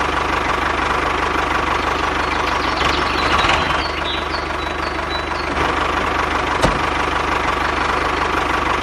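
An engine running steadily at idle with a fast, even knocking beat, like a diesel tractor engine.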